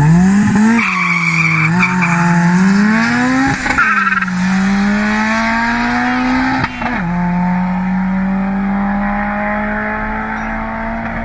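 Turbocharged 1.6-litre four-cylinder Nissan bakkie and Nissan 370Z's 3.7-litre V6 launching in a drag race, engines revving hard and pulling through the gears. The pitch climbs and drops sharply at each upshift, about four times, then holds steady as the cars draw away.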